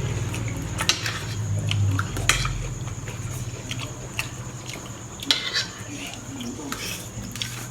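Cutlery clinking and scraping on a plate while eating, with a few sharp clinks scattered through, over a low steady hum.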